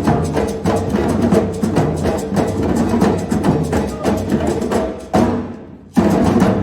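A percussion group playing drums in a fast, dense rhythm. About five seconds in the playing suddenly drops away and dies out over a second, then the drums come back in together near the end.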